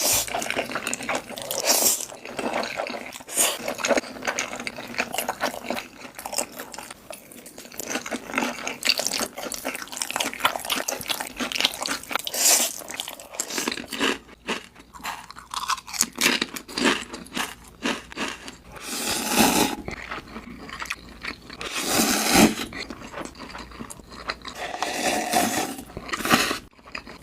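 Close-miked eating sounds of noodles being eaten: wet chewing and crunching with many small clicks, and a few louder noisy bursts spread through it.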